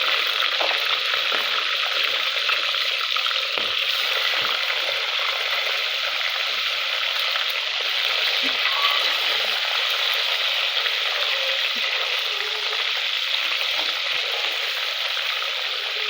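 Tilapia deep-frying in hot oil: a steady, dense sizzle with small crackles and pops throughout.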